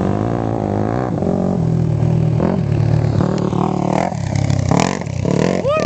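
Pickup truck engine revving up and down as the truck spins its wheels and slides around on loose sand, its pitch rising and falling.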